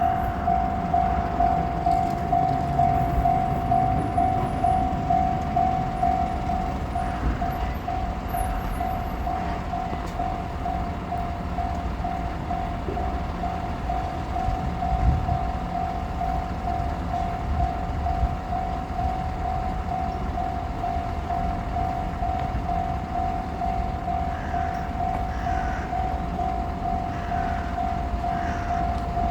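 Japanese level-crossing warning bell ringing, a single electronic tone repeated in a steady rapid rhythm, signalling an approaching train, over a low rumble.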